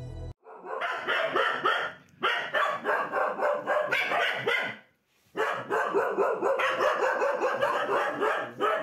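Small dogs barking rapidly and nonstop in three long bouts, with short breaks about two and five seconds in.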